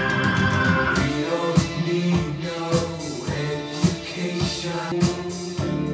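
A song with a singing voice and guitar playing through a pair of Martin Logan IW6 in-wall speakers (Installer series, two-way with a poly woofer and titanium dome tweeter), with a steady beat.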